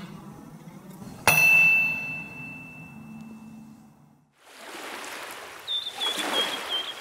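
Intro logo sound effect: a single bright metallic ding strikes about a second in and rings out, fading over a couple of seconds. After a short gap a steady hiss comes in, with a quick run of high chirps near the end.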